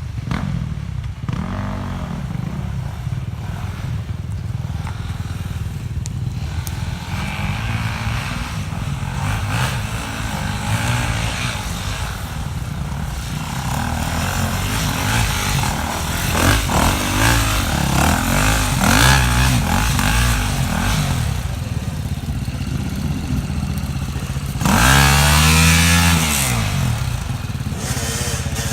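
Off-road vehicle engine running and revving up and down over rough going, with a harder, louder rev near the end.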